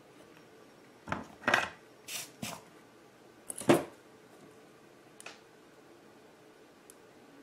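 Small hand tools and a soldering iron being picked up and set down on a workbench cutting mat: a handful of short clicks and clatters between about one and four seconds in, then a couple of faint ticks.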